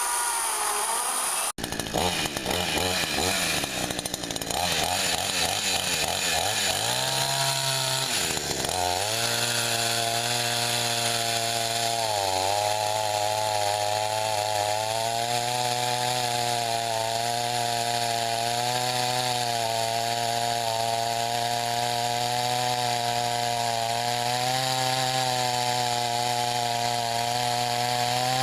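Chainsaw running and cutting through a pecan log. The engine note is unsteady at first, then holds a steady pitch through the cut, dipping briefly about twelve seconds in and again near the end.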